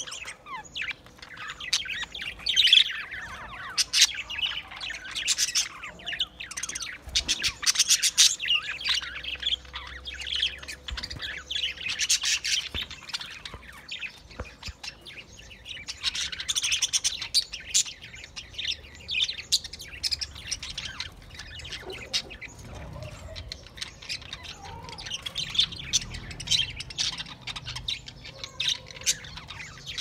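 A flock of budgerigars chirping and chattering, with many short calls overlapping without a break.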